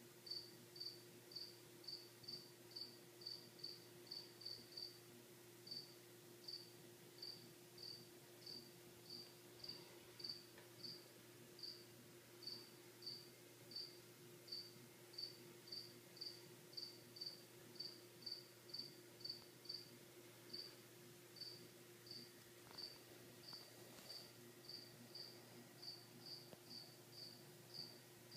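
A cricket chirping steadily, short high chirps about two a second with a few brief pauses, over a faint steady hum.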